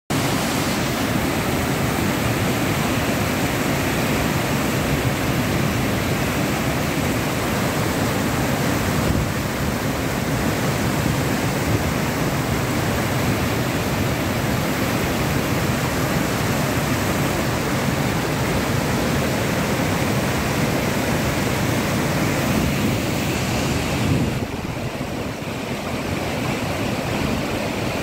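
Muddy floodwater of a river rushing and churning in rapids over rocks and a bridge, a steady, loud, even rush that grows a little quieter about 24 seconds in.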